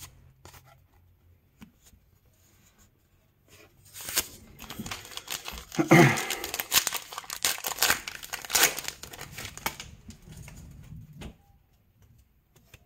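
Baseball card pack wrapper being torn open and crinkled. It starts about four seconds in, runs for several seconds and is loudest around six and nine seconds in.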